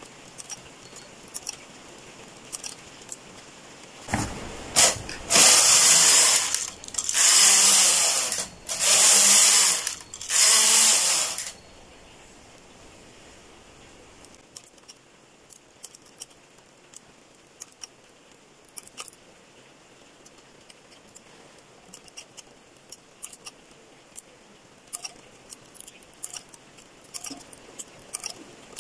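Knitting machine carriage pushed across the needle bed four times in a row, each pass a loud scraping run of about a second, as four rows are knitted. After that come faint scattered clicks of a transfer tool picking up stitches on the metal needles.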